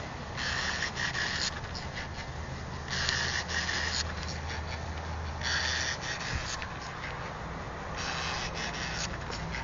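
Repeating hissing buzz from the fuel rail area of a Vauxhall X16XE 1.6 16-valve engine that won't start. Each burst lasts about a second and comes about every two and a half seconds, over a steady low hum.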